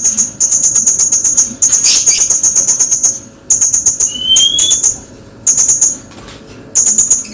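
Blue-crowned hanging parrots (srindit) calling: high, rapid chittering calls in bursts of about a second, repeated with short pauses. A short rising whistle from another bird sounds about four seconds in.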